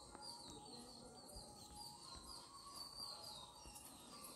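A bird chirping faintly: a short, high, falling note repeated about three times a second, over a faint steady high-pitched hum.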